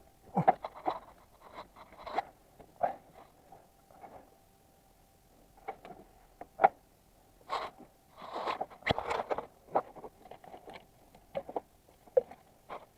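Scattered clicks, knocks and scrapes of hand tools and parts being handled while working on the engine, with a cluster of busier scraping around the middle and a faint steady hum underneath.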